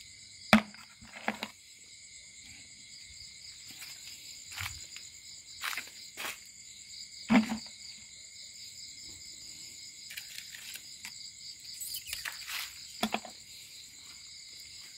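Night insects such as crickets chirring steadily in several high-pitched layers. Scattered sharp knocks and rustles of handling break over it, the loudest about half a second in and about seven seconds in.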